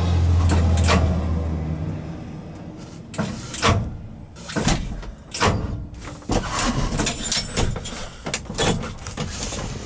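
1973 Ford F-250's 360 V8 idling with a steady low hum, then stopping about two seconds in; the owner suspects the oil pump is not pumping enough. Irregular clicks and knocks from the cab follow.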